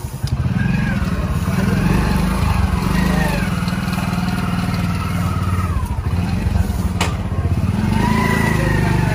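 Small motorcycle engine running steadily with a low, even throb, with faint voices over it and a single click about seven seconds in.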